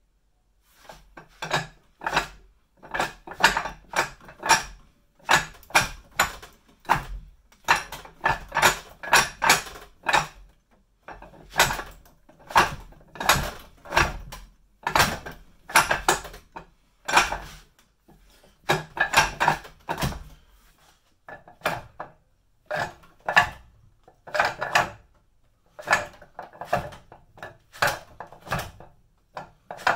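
Wing Chun wooden dummy (mook jong) clacking as hands and forearms strike and circle its wooden arms in a huen sao drill, the arms knocking and rattling in their sockets. The clacks come in quick groups about every one to two seconds.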